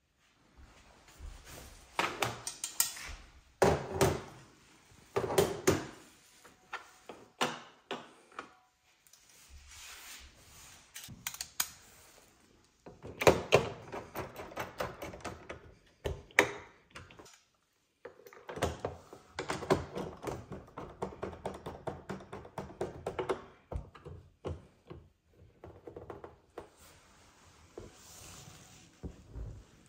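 Clicks, knocks and rattles of a Samsung Slim Fit wall mount's metal bracket and plastic parts being handled and screwed onto the back of a TV with a hand screwdriver, in bursts with short pauses between.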